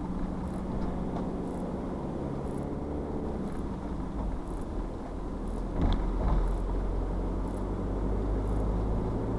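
Vehicle engine hum and road noise heard from inside the cab while driving at steady speed, with a bump about six seconds in after which the low rumble grows louder.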